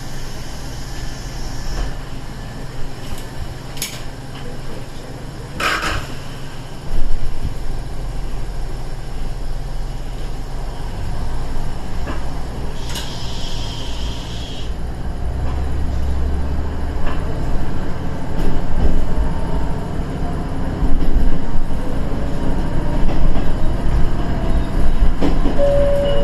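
KiHa 110 series diesel railcar running, its low engine rumble growing louder and heavier about halfway through as the train gets under way. A sharp knock sounds about six seconds in, and a short hiss comes about thirteen seconds in.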